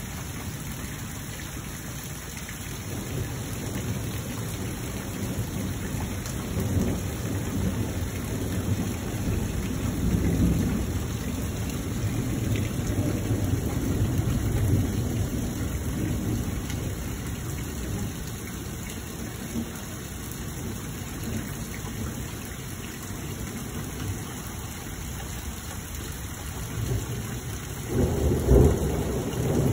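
Thunder: a long low rumble that swells over several seconds and then fades, with a sharper, louder clap near the end, over steady rain.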